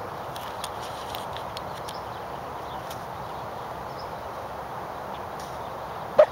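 A corgi gives one short, loud bark near the end, over a steady background hiss.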